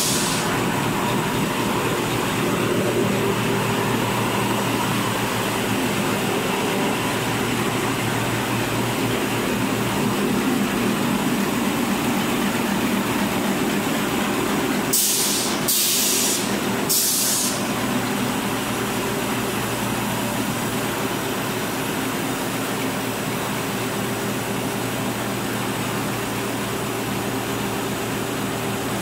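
Dispenser napkin paper folding machine running, a steady mechanical drone with a few fixed tones. About halfway through, three short sharp hisses come about a second apart.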